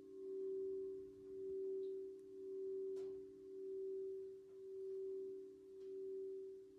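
Gorin henshō temple bell ringing on after a strike: one low held tone that pulses slowly, about once a second, as it fades. A faint crackle of a wood fire about three seconds in.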